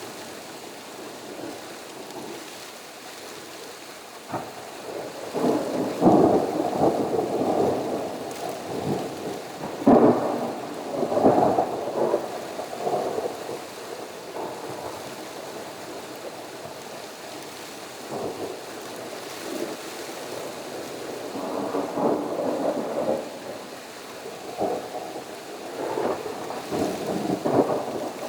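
Thunder rumbling in several rolls over steady rain, the loudest rolls coming about six and ten seconds in, with more rumbling near the end.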